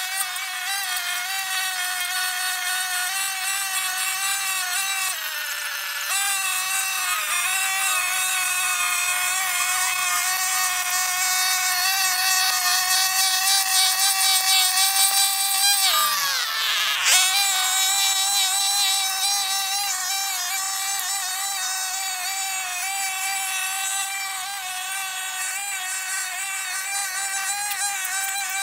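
Brush cutter engine running steadily at high speed with a high whine. Its pitch sags a little about five seconds in, then drops sharply and climbs back about sixteen seconds in.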